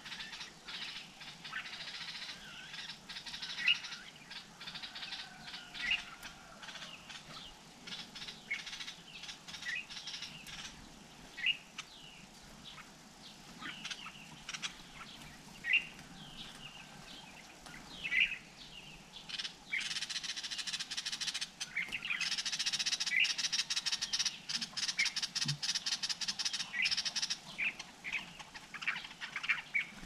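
Sharp, short bird chirps repeated every second or two. From about twenty seconds in, a dense crackling hiss joins them for several seconds and is the loudest part.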